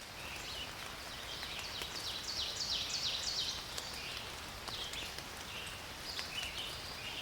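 Songbirds singing: runs of quick, high, downward-sliding chirps, thickest about two to three seconds in, over a steady outdoor hiss.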